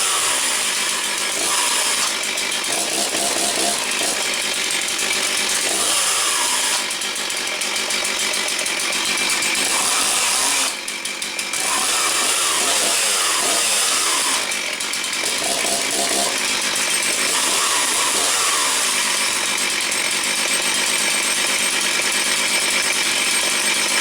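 Stihl 036 QS two-stroke chainsaw running, its revs repeatedly rising and falling, with a few brief drops in level.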